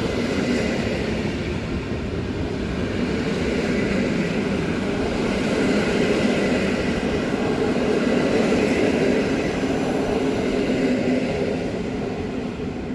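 A passenger train rolling past on the station track, a loud steady rumble of wheels on rail with a faint steady hum. It cuts off abruptly near the end.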